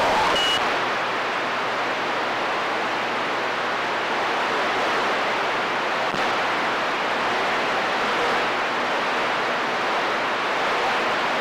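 CB radio receiver giving out steady static hiss between transmissions, with a short high beep just after the start.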